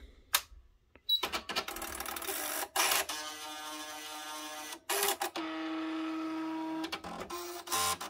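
Nakajima WPT-160 electronic print-wheel typewriter switched on: a click about half a second in, then its carriage and print-wheel motors whirring in several runs, broken by short stops and clicks, as the carriage travels across during the power-up reset.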